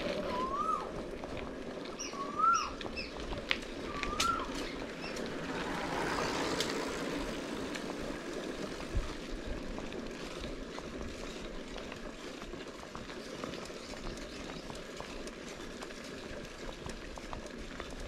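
Wind and rolling-tyre noise from a mountain bike on a trail, heard from a chest-mounted camera, with scattered small clicks. A bird gives three short rising-then-falling calls in the first few seconds.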